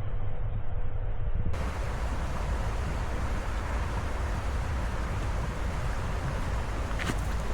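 Wind buffeting the microphone, a steady low rumble under a rushing hiss. Near the end come a few short crunches of footsteps in snow.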